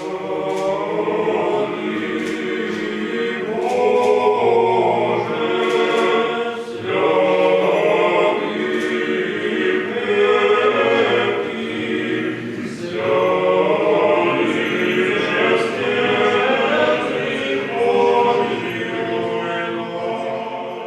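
Russian Orthodox church choir singing a cappella, several voices in harmony in long held phrases with short breaks between them.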